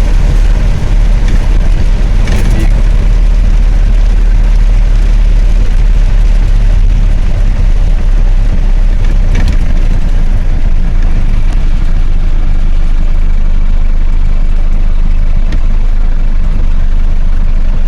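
Steady low rumble of a truck driving on a wet road, engine and road noise heard from inside the cab.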